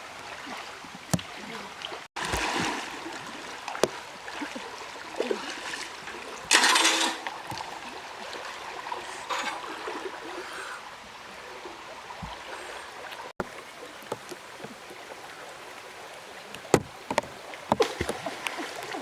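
River water splashing and sloshing, with one louder splash about six and a half seconds in and a few sharp knocks near the end.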